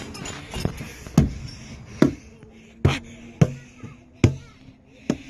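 Playground drums struck by hand about six times at an uneven pace of roughly one hit a second, each hit a sharp knock followed by a short low ring.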